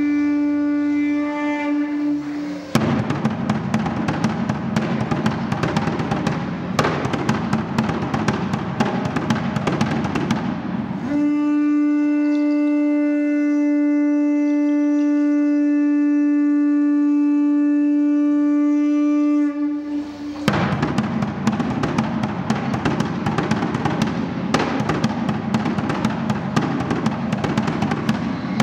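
A conch shell trumpet blown in one long, steady note, cut off a few seconds in by fast drumming with dense rattling. The conch sounds again for about nine seconds near the middle, then the drumming and rattling return.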